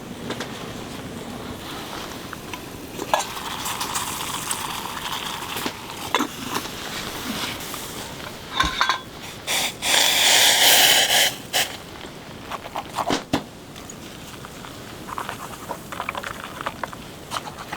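Camp cups, cookware and utensils being handled, clinking and knocking now and then as a hot drink is made. About ten seconds in there is a loud rustling noise lasting over a second.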